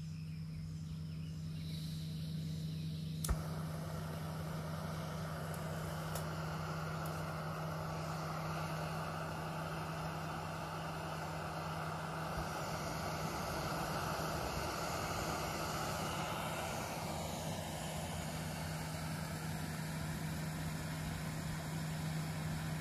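Backpacking gas canister stove: a sharp click about three seconds in, then the burner hissing steadily under a pot. A steady low hum runs underneath.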